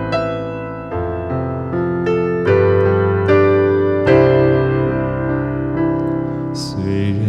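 Instrumental interlude played on a two-tier electronic arranger keyboard: a piano-voiced melody of struck notes over held chords and a bass line, with a brief bright shimmer near the end.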